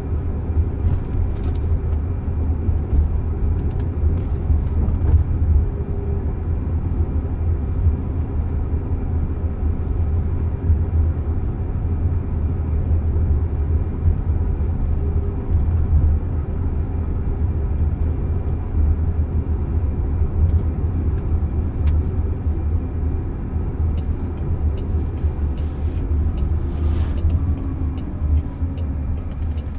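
Steady low road and tyre rumble inside the cabin of a Waymo Jaguar I-PACE electric car driving along, with a few faint clicks near the end.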